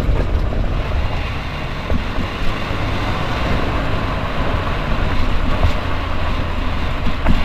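Ford Mondeo Mk4 on the move, with steady road and running rumble and a few short knocks heard through it.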